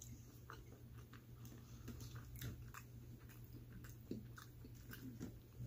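Faint chewing of pepperoni pizza close to the microphone, with scattered soft wet mouth clicks over a steady low hum.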